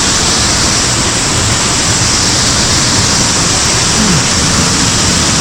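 Loud, steady rushing of a mountain stream's cascading water close by.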